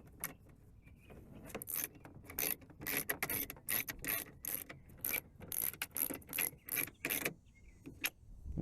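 Cordless drill/driver driving screws in short bursts, its torque clutch set low and clattering as it slips when each screw seats.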